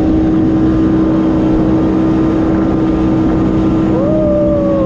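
Fishing boat's motor running steadily under way, with a constant hum over rough wind and water noise. Near the end a short tone rises and then falls away.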